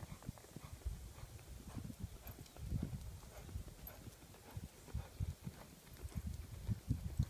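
Horse's hooves thudding on the ground: irregular, dull low thuds, several a second, as a horse works through cutting and reining manoeuvres.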